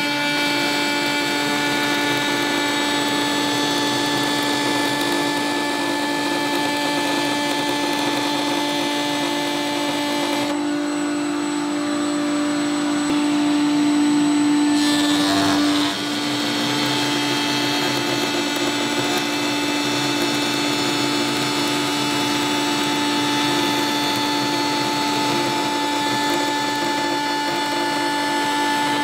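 Table-mounted router with a bearing-guided pattern bit running at speed and cutting a curved solid-wood cot leg against an MDF template: a steady high motor whine over the rasp of the cut, with dust extraction running. Near the middle the sound turns duller and a little louder for a few seconds.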